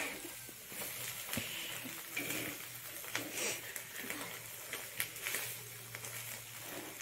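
Egg poli frying quietly on a flat pan over a gas stove, with a faint sizzle and scattered light scrapes and taps of a metal spatula against the pan.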